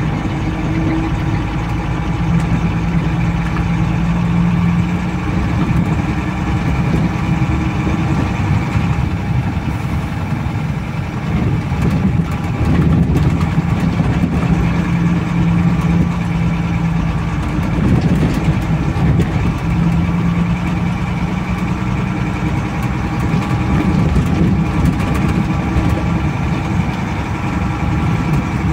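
Water tanker truck's engine heard from inside the cab while driving a rough dirt road, running steadily with its note swelling and easing every few seconds. Scattered knocks come from the truck jolting over the uneven track.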